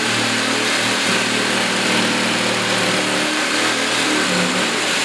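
Reciprocating saw with a Diablo pruning blade cutting through a chunk of dry spruce, the motor running at a steady pitch over a loud rasping hiss.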